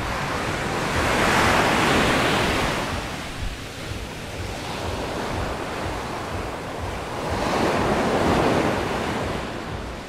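Sea waves breaking on the shore, two swells of surf about six seconds apart, with wind buffeting the microphone.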